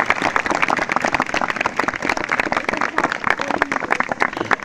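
Audience applauding: many people clapping hands in a dense, close stream of claps.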